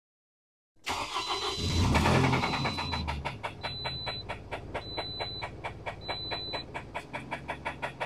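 Car engine starting about a second in, catching with a loud surge and settling to an idle with a steady knock repeating several times a second: a knock bad enough that the engine needs replacing, though it runs fine.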